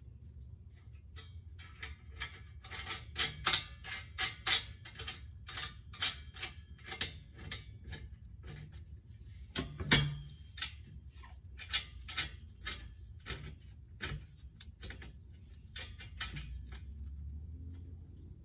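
Irregular clicks and knocks, about two or three a second, as hand tools and exhaust parts are handled. The loudest knocks come about three and a half and ten seconds in.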